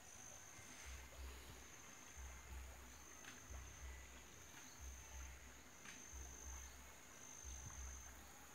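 Faint outdoor ambience: an insect trilling in long high-pitched stretches with short gaps, over a low rumble that pulses on and off and a few soft clicks.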